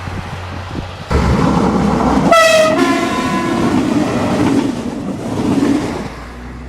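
A train passing with loud rolling rail noise, sounding its horn: a short, strong blast about two seconds in, followed by a fainter, longer second note.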